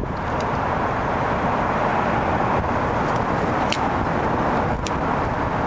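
Steady rushing outdoor background noise, with a couple of faint clicks.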